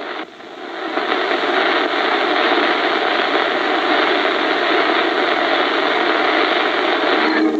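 Hot oil sizzling steadily as jangiri rings deep-fry in a large kadai.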